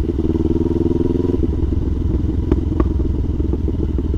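CFMoto 700 CL-X Sport's parallel-twin engine running through an S&S slip-on exhaust while riding. It holds a steady note at first, then turns rougher and uneven about a second and a half in, with two light ticks in the middle.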